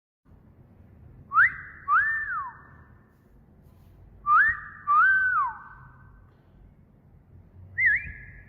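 Two wolf whistles, each a quick upward whistle followed by a longer one that rises, holds and falls away, with a short whistle near the end.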